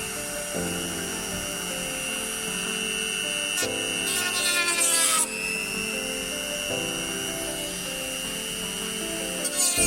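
A small power tool running with a steady high whine, growing louder with sweeping changes in pitch about halfway through, typical of grinding or sanding fiberglass. Background music plays with chords changing every few seconds.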